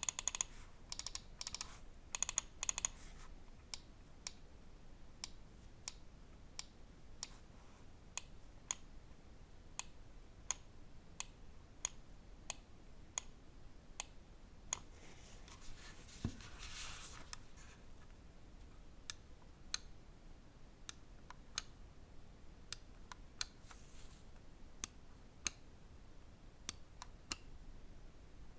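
Pulsar Xlite V3 Mini (Size 1) gaming mouse being tested. The first three seconds hold three short bursts of rapid ticking. After that, single sharp button clicks come evenly, about three every two seconds.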